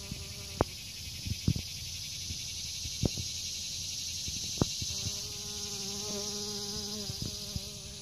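Bumblebee buzzing in flight, a pitched hum heard briefly at the start and again for a couple of seconds past the middle, over a steady high hiss. A few sharp clicks stand out in the first half.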